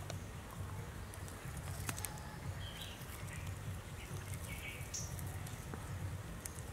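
Faint outdoor background with a steady low rumble, a few short bird chirps, and soft rustling and clicking from hands peeling the skin off a snake.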